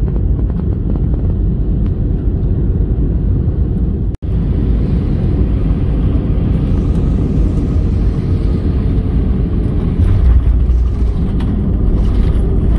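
Airliner cabin noise during landing: a loud, steady rumble of engines and rushing air. It cuts out sharply for an instant about four seconds in, then carries on as the plane rolls along the runway after touchdown.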